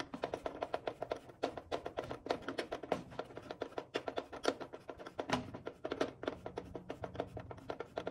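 Hand screwdriver turning a headlight mounting screw into a tight metal clip, giving a run of quick, uneven clicks and scrapes, several a second.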